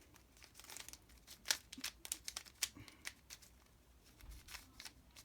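A plastic Mirror Cube puzzle being scrambled by hand: an irregular run of quick, light clicks and clacks as its layers are turned.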